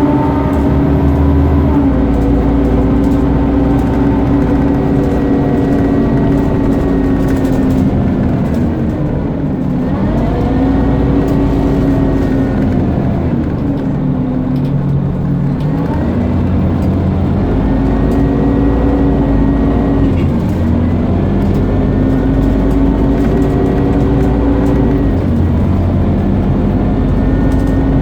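Scania CN230UB Omnicity bus engine pulling and easing off in turns, with a loud "hoover" whine that rises in pitch as the bus gathers speed and drops away between pulls, several times over.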